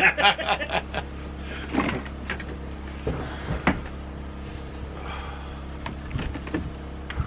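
Split firewood logs knocking and clunking as they are handled and stacked: a handful of separate wooden knocks spread over several seconds, with a brief voice in the first second.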